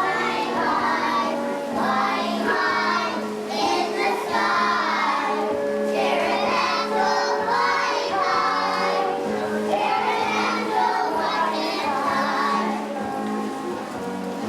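Children singing together, a song sung as a group over steady instrumental accompaniment.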